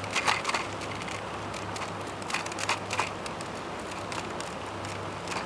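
Bicycle riding along a boardwalk: a steady low rolling hum with scattered clicks and rattles, a cluster just after the start and another about halfway through.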